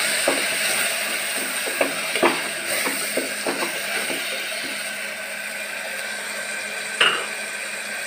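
A slotted spatula stirring and scraping chopped onion and tomato in an open metal pressure-cooker pan, with irregular light knocks against the pan wall, mostly in the first half and a sharper one near the end, over a steady hiss.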